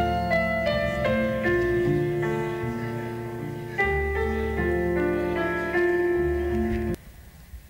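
Slow instrumental piano music: held chords over a sustained low bass, the notes changing every half second or so, stopping abruptly about seven seconds in.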